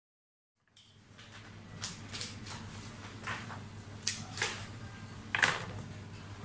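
After a moment of silence, a steady low hum sets in, with scattered clicks and knocks of roses, a small glass and a stone vase being handled on a workbench; the loudest knock comes about five and a half seconds in.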